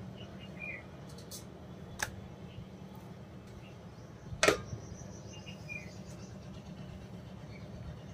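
Quiet, steady low hum with two short knocks, the louder one about halfway through, as a stainless steel colander is lifted off a kitchen scale.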